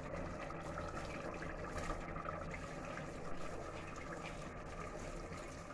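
Washed, wet rice and its water being poured from a steel bowl into a pressure cooker of chicken masala: a faint wet pouring and trickling over a low steady hum.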